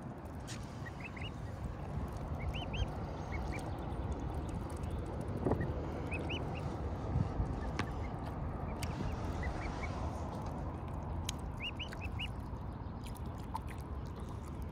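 Mute swan cygnets peeping: short, high calls, often in twos or threes, repeating every second or two over a steady low background rumble.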